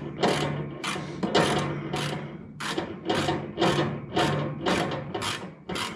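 Ratchet wrench clicking in short repeated strokes, about two to three a second, as a nut is tightened down.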